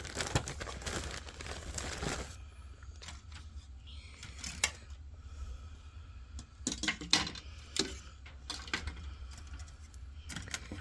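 Plastic model kit parts being handled: a crinkly rustle of plastic for about two seconds, then scattered light clicks and rattles of plastic parts trees being moved.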